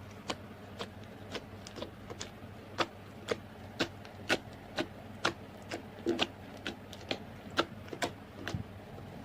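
Slime being squeezed and pressed, giving sharp clicks and pops about twice a second.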